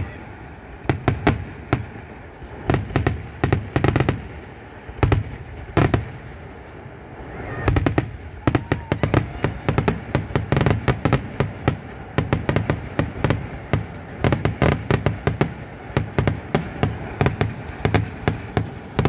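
Aerial fireworks display: shells bursting with sharp bangs, several a second, coming thicker and faster from about eight seconds in.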